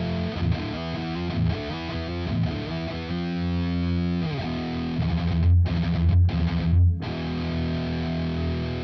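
Distorted electric guitar played through a LY-ROCK BE-OD Deluxe overdrive pedal: a hard-rock riff of single notes and a held chord, then heavy low chugs that stop short three times, ending on a ringing chord.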